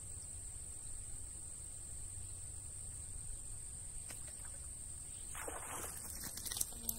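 Steady high-pitched insect chorus buzzing from the pond margins. Near the end, a short swish and a few sharp clicks as a fishing rod is cast and its reel works.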